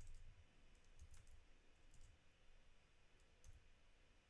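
Faint computer keyboard key clicks: a few single keystrokes spaced a second or so apart, over near silence.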